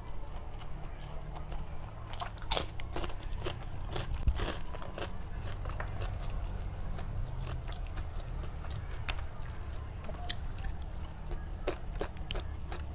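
Close-up eating sounds of a mukbang meal of gulai tempoyak: chewing and mouth smacks with scattered sharp clicks. A steady low hum and a steady high-pitched whine run underneath.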